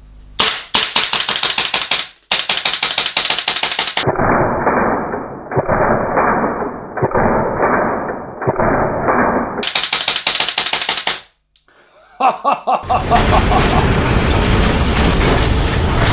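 Gas blowback airsoft rifle firing rapid fully automatic bursts, with short pauses between them; one stretch of the shooting sounds muffled. Near the end a loud, steady, noisy sound takes over.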